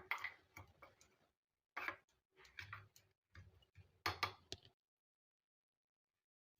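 A spoon clinking and scraping against a bowl while stirring set dosa batter: a string of light, irregular taps that stops about five seconds in.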